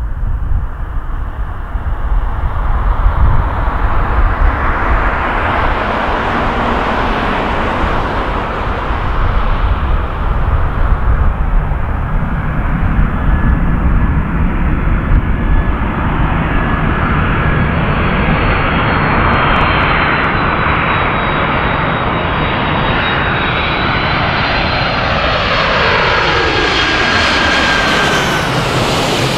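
Boeing 747-400 jet engines on final approach, growing louder as the jumbo jet closes in, with a steady high-pitched whine over the noise. Near the end the aircraft passes low overhead and the sound sweeps downward in pitch.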